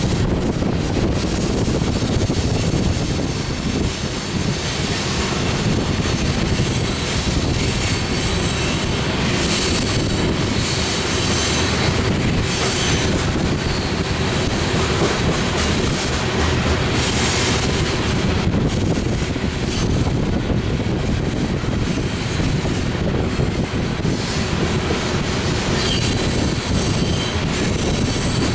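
BNSF grain train of covered hopper cars rolling past at steady speed: a continuous rumble of steel wheels on rail with clacking over the joints, and a thin high wheel squeal coming and going.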